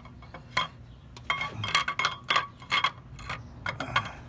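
Steel camshafts and cam bearing caps clinking and knocking against each other and the cylinder head of a Nissan Altima 2.5-litre engine as they are lifted off by hand. A quick series of sharp metal clinks, several ringing briefly.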